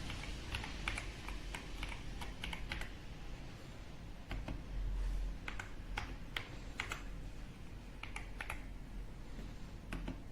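Typing on the AJAZZ x Attack Shark X85, a 75% gasket-mounted mechanical keyboard: separate key clicks at an uneven pace, with a short pause a third of the way in.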